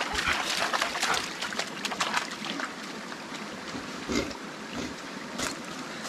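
Water splashing in a shallow stream as a dog stands and moves in it, dense for the first two seconds or so, then the stream's steady trickle with a few single splashes.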